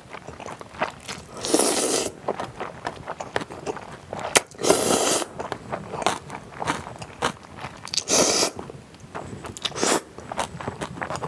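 Close-miked slurping and chewing of cold naengmyeon noodles. Three long slurps come about 1.5, 4.5 and 8 seconds in, with a shorter one near the end, and wet chewing clicks fill the gaps.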